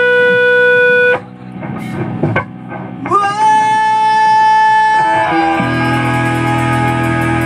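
Live rock band on a small stage, electric guitar and bass amplified: a held note rings out and stops after about a second, a note slides up and holds about three seconds in, and the full band comes in with the bass and regular cymbal ticks a little over five seconds in.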